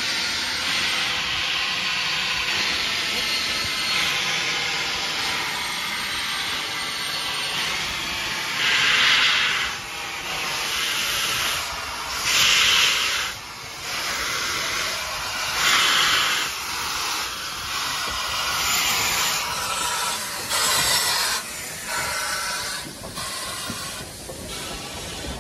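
BR Standard Class 5 steam locomotive 73156 hissing steam steadily, then giving about four louder blasts of steam a few seconds apart.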